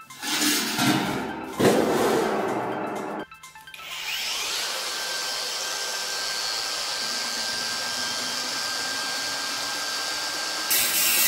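Loud rough noise for about three seconds, which cuts off. Then a cordless angle grinder spins up and runs steadily with a thin high whine as it grinds the stainless-steel frame. It grows louder and harsher near the end as the disc bites harder into the steel.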